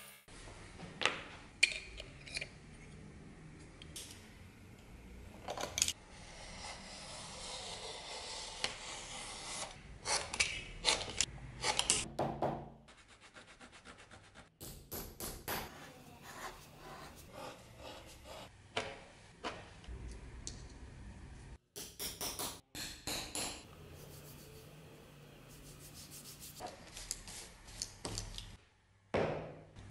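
Leather hand work: a knife cutting and scraping a thin leather strip, and a cloth rubbing over a leather strap, with scattered sharp taps and clicks and abrupt changes from one stretch to the next.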